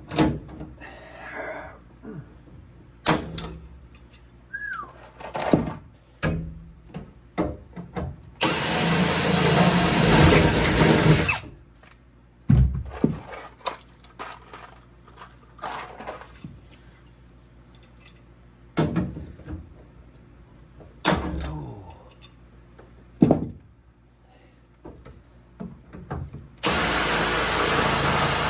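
Power drill running in two bursts of about three seconds, once about a third of the way in and again near the end, re-drilling holes for aluminium pop rivets. In between come scattered sharp clicks and knocks of tools and metal being handled.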